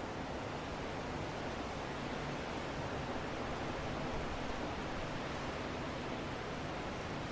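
Steady wind: a continuous, even rushing hiss with no gusts, swells or separate sounds.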